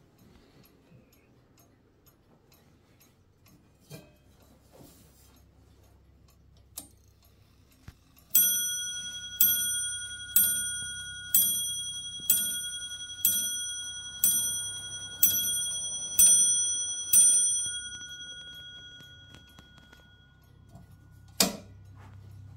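Antique French Paris clock movement in a marble four-column portico clock striking the hour on its bell: ten strokes about one a second, each ringing on into the next. A few faint clicks come before the strike and one sharp click near the end.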